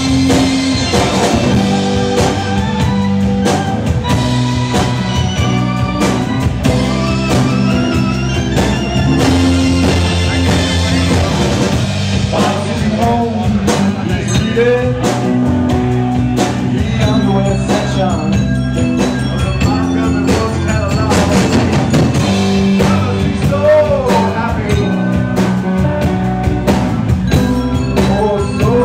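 Live rock band playing a song at full volume: electric guitar, electric bass and drum kit.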